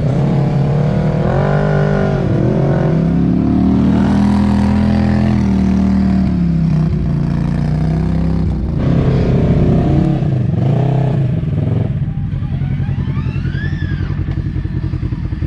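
Polaris RZR XP side-by-side engine revving up and down under load on a steep dirt hill climb. About twelve seconds in it settles to a steady, pulsing idle, with a brief rising-and-falling whine near the end.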